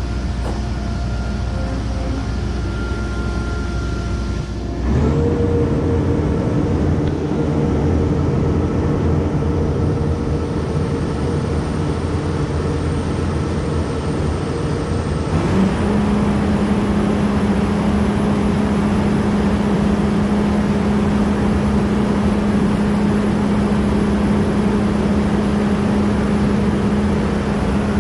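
John Deere combine running under test with a newly installed Crary air system. It is a steady machine drone that steps up to a louder, higher-pitched hum about five seconds in, and again, with a short upward glide, about fifteen seconds in.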